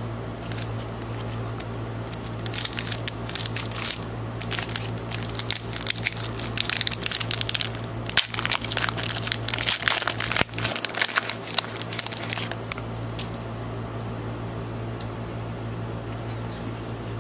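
Foil wrapper of a hockey card pack crinkling and crackling as it is torn open and handled, busiest from about six to twelve seconds in. A steady low hum runs underneath.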